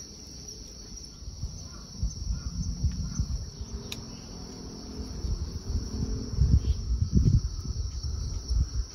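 Crickets singing in a steady high-pitched drone. From about two seconds in, an irregular low rumble rises over it and becomes the loudest sound.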